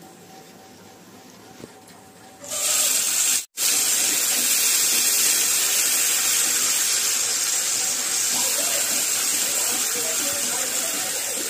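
Ground green masala paste sizzling in hot oil in a steel pan as it is stirred with a ladle. The loud, steady hiss starts about two and a half seconds in, after a quieter stretch, and breaks off for a moment about a second later.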